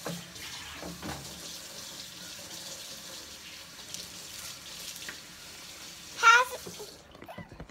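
A steady rushing hiss that cuts off suddenly about seven seconds in. About six seconds in, a child gives one short, loud, high-pitched vocal sound.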